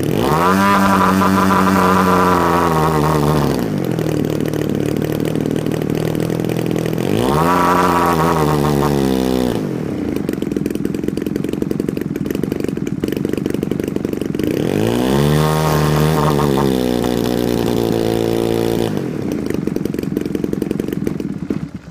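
3W-106B2 twin-cylinder two-stroke gas engine on a large RC airplane running rough and misfiring. Three times it is throttled up, rising in pitch and then sagging back without spinning up to high revs (it bogs), with an uneven, stuttering idle in between. It stops near the end.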